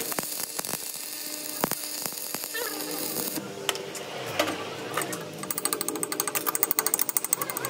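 Stick-welding arc crackling and hissing on a steel shaft, cutting off about three and a half seconds in. From about five and a half seconds, rapid even tapping of a chipping hammer knocking slag off the fresh weld.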